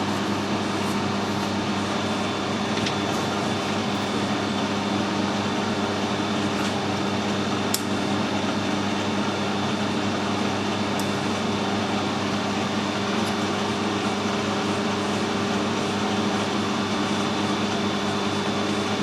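Metal lathe running steadily with an even hum, with a few faint sharp ticks.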